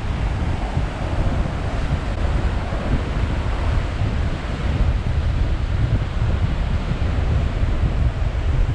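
Heavy surf from post-typhoon swell washing against sea cliffs, a steady rush of water with wind buffeting the microphone in a low rumble.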